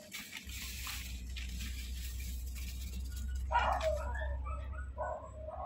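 A dog whimpering and yipping in two short bouts, about three and a half seconds in and again near the end, over a steady low rumble. A soft hiss of white powder pouring from a packet into a hole in the soil comes early.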